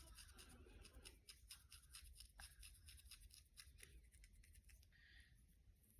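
Fingernails scratching through hair on a dandruff-flaked scalp: faint, quick, crisp scratching strokes several times a second, thinning out near the end.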